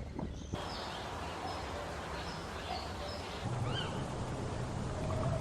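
Steady outdoor background noise with faint, short bird chirps scattered through it.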